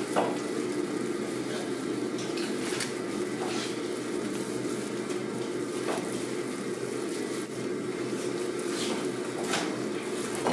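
Steady machine hum with several short soft clicks and wet handling noises as gloved hands peel the skin off a raw ganjaemi skate on a plastic cutting board.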